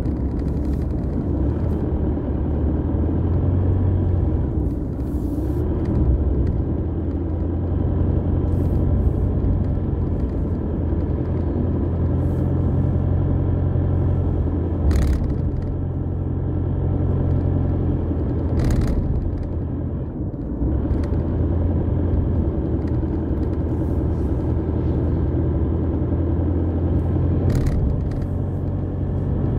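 Car driving, heard from inside the cabin: a steady low rumble of engine and road noise, with a few brief knocks along the way.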